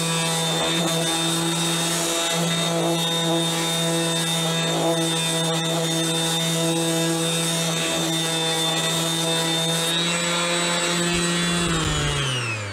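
Ryobi RROS18C brushless 18 V random orbital sander running at a steady pitch while sanding a wooden board. Near the end it is switched off and its hum falls in pitch as it winds down, the pad coming to a stop very quickly.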